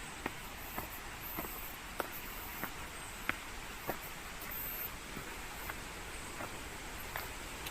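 Footsteps going down a long flight of steps at a steady walking pace, a sharp step about every half to two-thirds of a second, over a steady outdoor background hiss.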